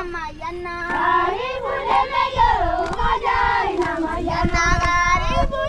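Several children singing together, high voices overlapping with held and sliding notes. A low rumble runs underneath from about halfway.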